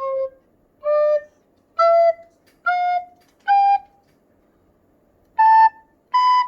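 Recorder playing seven short, separate notes that climb step by step into the high register: five notes, a pause of about a second and a half, then two higher notes. The high notes are played with the covering finger lifted only slightly off its hole, and they come out clear and steady.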